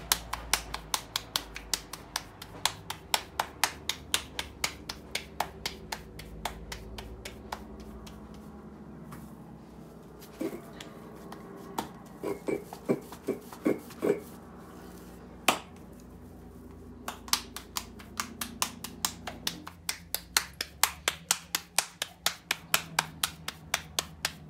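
Hands patting a ball of corn masa between the palms to shape it into a thick round: quick slaps at about four to five a second. The patting pauses for several seconds midway, when only a few duller knocks are heard, then starts again.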